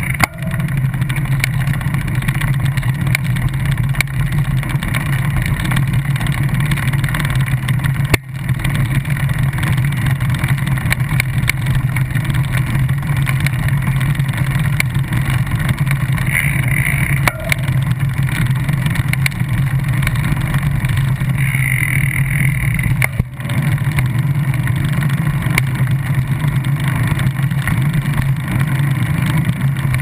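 Steady riding noise from a microphone mounted on a bicycle's quick-release wheel skewer: a continuous low road rumble with wind hiss over it, briefly dropping out twice.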